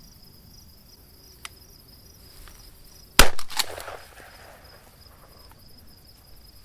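Shotgun fired twice in quick succession, less than half a second apart, at doves flying past. Crickets chirp steadily throughout.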